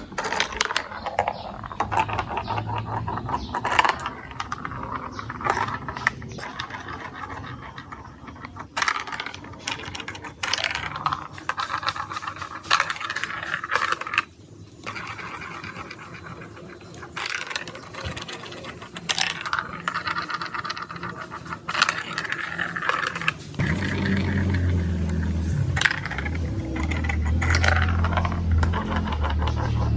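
Marbles rolling and clattering through a plastic building-block marble run, with many sharp clicks and rattles as they hit the track pieces. A low rumble joins about three-quarters of the way through.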